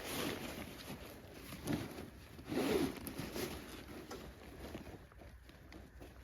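Nylon tent fabric rustling and swishing as it is handled, with a few louder swishes in the first three seconds and then softer scattered rustles.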